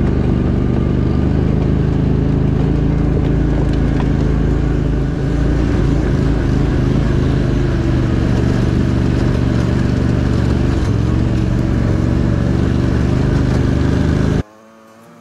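Argo amphibious ATV's engine running steadily while driving, a loud drone with a brief dip about five seconds in. It cuts off suddenly near the end.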